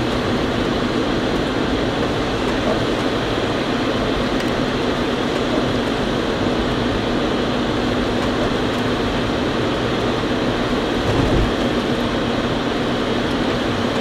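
Steady engine and road noise heard inside a moving car's cabin, with a low steady hum and a brief low bump near the end.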